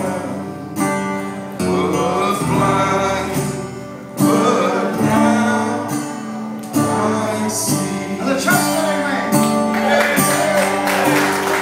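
A man singing with guitar accompaniment in a live performance, the voice carried through the PA with held notes over strummed chords.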